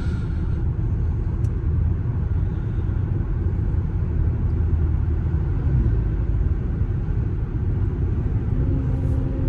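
Steady low tire roar and road rumble heard inside a car's cabin at about 55 mph, from Cooper Endurance Plus tires that the owner blames for the noise after a rotation left the worn tires on the front.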